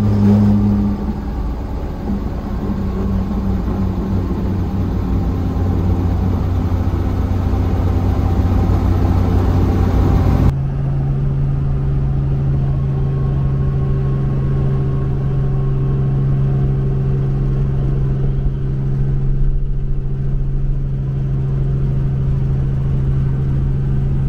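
Helicopter engine and rotor running with a steady drone, heard inside the cabin; the drone's pitch shifts abruptly about ten seconds in.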